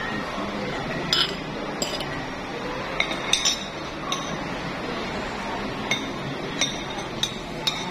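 Spoon and fork clinking and scraping against a plate while eating, about ten sharp, irregular clinks over a steady background hum.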